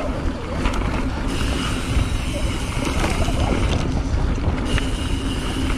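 Wind rushing over an action camera's microphone and mountain-bike tyres rolling over a dirt trail while riding, with a few sharp knocks from the bike going over bumps.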